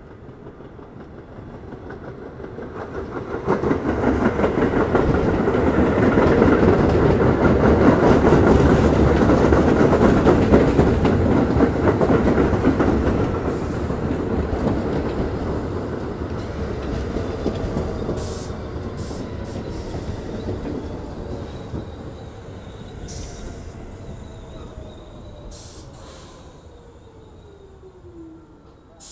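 R46 subway train approaching and running past, loud as it goes by, then slowing to a stop with a whine that falls steadily in pitch over the last several seconds.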